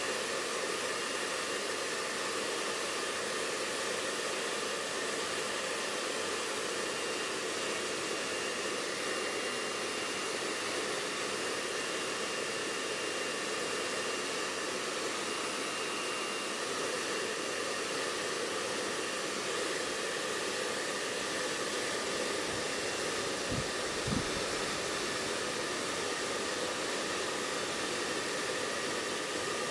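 Electric hair dryer running steadily, a constant rushing noise, blowing on a wet kitten's fur to dry it after a bath.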